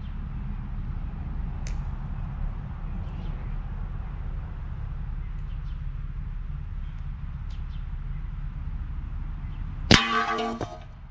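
A single shot from a Bulldog big-bore air rifle hits a body armor plate about ten seconds in. It is one sharp crack, followed by a ringing clang from the plate that fades within about a second as the plate is knocked off its stand. Before the shot there is only a steady low rumble.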